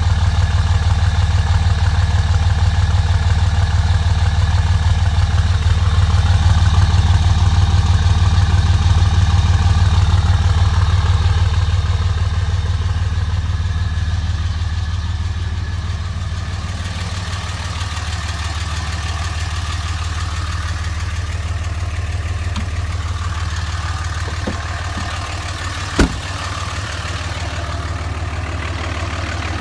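2005 Dodge Ram pickup engine idling with a steady low pulse, a little quieter from about halfway through, and one sharp click near the end. The owner says it misses and smokes when first started and suspects bad injectors.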